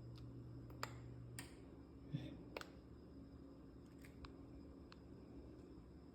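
Near silence: room tone with a faint low hum that stops about one and a half seconds in, and a few faint scattered clicks.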